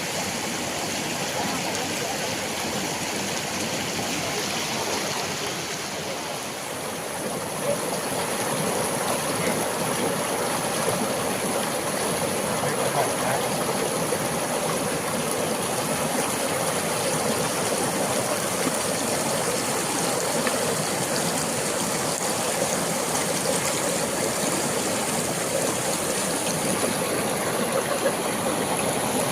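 Water rushing steadily at a dam, with a steady high-pitched whine above it. It grows a little louder about seven seconds in.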